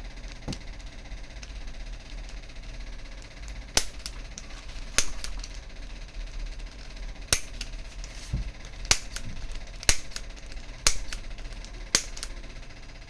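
Spring-loaded chiropractic impulse adjuster firing: a series of sharp snapping clicks. About seven loud ones come a second or two apart from about four seconds in, with fainter clicks between them.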